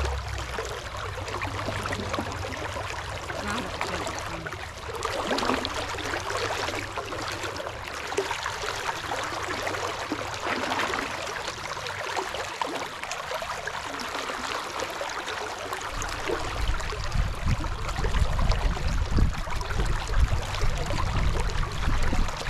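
Shallow river current flowing and rippling past, a steady rushing of water. A low, uneven rumble comes in about two-thirds of the way through.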